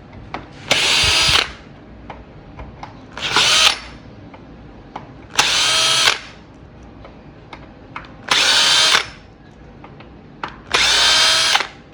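Cordless drill with a T25 Torx bit backing out the Loctite-treated screws on an electric scooter's stem: five short runs of the motor whine, each under a second, with small clicks between them as the bit is set on the next screw.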